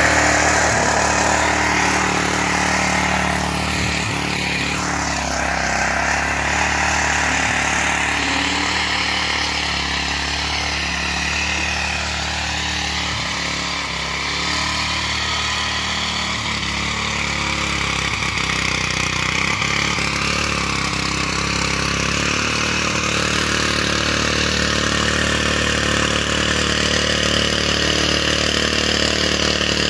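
Mitsubishi-engined walk-behind rotary tiller running steadily while it churns the garden soil, its engine note dipping a little in loudness about midway and then holding steady.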